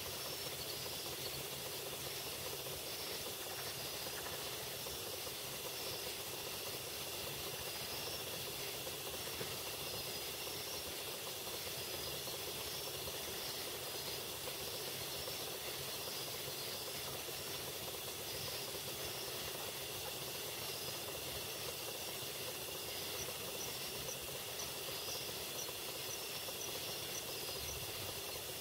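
Steady hiss of recording noise under a constant high insect drone, with scattered short high-pitched chirps from an unidentified animal. About 23 seconds in, a run of short, evenly spaced high notes repeats for a few seconds.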